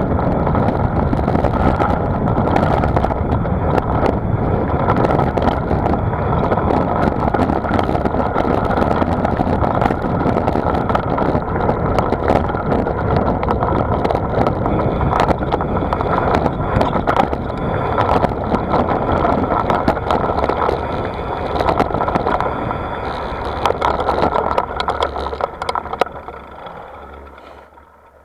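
Wind rushing over the microphone of a bicycle-mounted camera, with tyre and road rattle while riding at speed. The noise dies away near the end as the bike slows.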